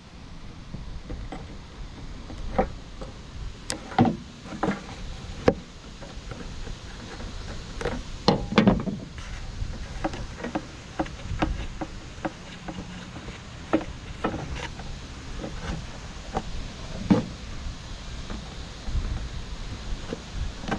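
Irregular metallic clicks and knocks of pliers and a bolt being worked loose on a lawn mower engine, over a low rumble.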